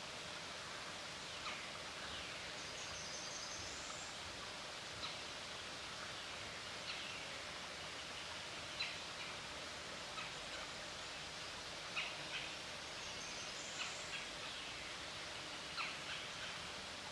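Woodland ambience: a steady background hiss with birds calling, short sharp chirps scattered throughout and a high trilling song phrase, ending on a rising note, twice about ten seconds apart.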